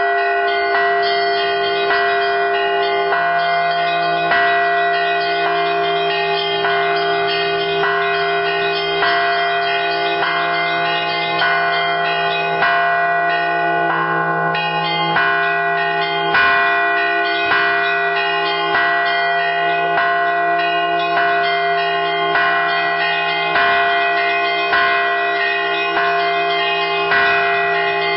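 A set of church bells rung together in a continuous Easter peal: smaller bells struck in a rapid, busy pattern over the long hum of larger bells, with a heavier stroke about once a second.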